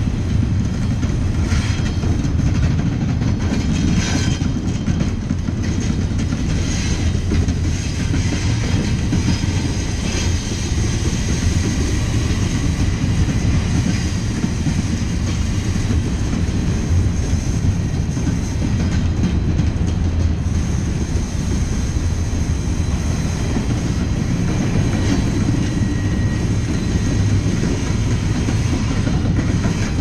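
Double-stack intermodal container train's well cars rolling past at close range: a steady, loud low rumble of steel wheels on rail, with occasional clicks of wheels passing over rail joints.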